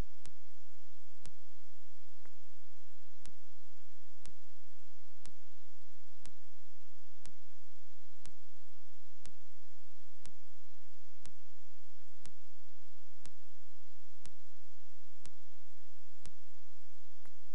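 Steady hiss with a low hum under it, and a sharp click that repeats about once a second, evenly spaced.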